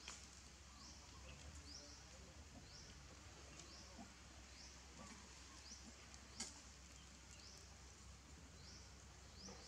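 Faint, short, high rising chirps, typical of a bird calling, repeating about once a second over a low steady hum, with a sharp click about six seconds in.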